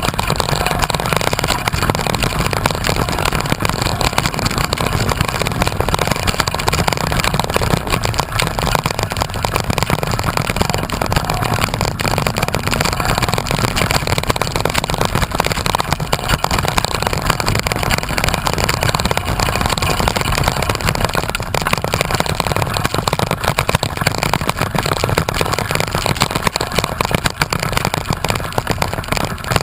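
Loud, steady rushing noise of wind buffeting the microphone, with no break throughout.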